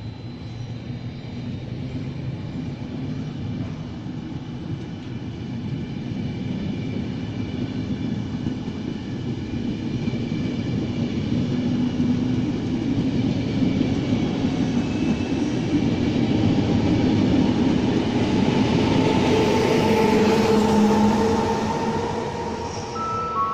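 Regional passenger train pulling out and gathering speed, its coaches rolling past, growing steadily louder. Near the end the E464 electric locomotive pushing at the rear passes, the loudest part, with a steady whine from it over the rolling noise.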